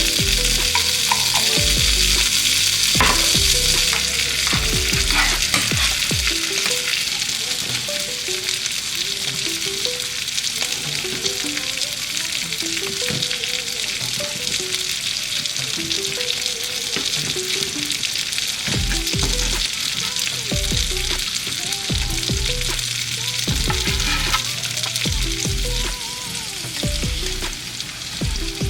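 Food sizzling in a buttered frying pan, a steady hiss that is a little stronger in the first few seconds. Background music with short melodic notes and a bass line plays along.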